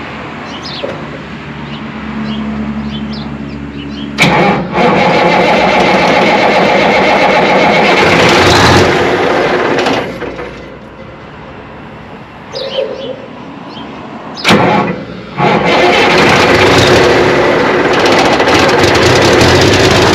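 1982 Kenworth K100's diesel engine, its exhaust removed, cranked and catching: it fires up loudly about four seconds in, dies down around ten seconds, then catches again near fifteen seconds and keeps running. The stumbling start fits the owners' suspicion of air in the fuel system after the truck ran out of fuel.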